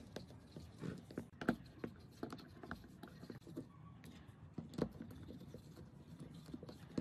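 Screws being driven by hand with a small screwdriver into a power-tool housing: irregular light clicks and taps of the driver and housing on the workbench, with louder knocks about a second and a half in and again near the five-second mark.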